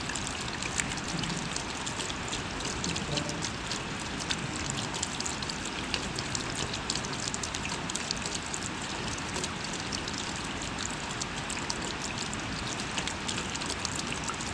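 Steady rain falling, a constant hiss with many close individual drops ticking sharply through it.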